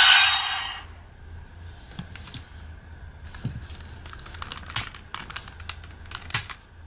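Sharp plastic clicks and clacks from handling a Shinkenger Shodophone toy morpher as it is flipped open, its hinge parts snapping into place. A sound effect from a toy morpher fades out in the first second.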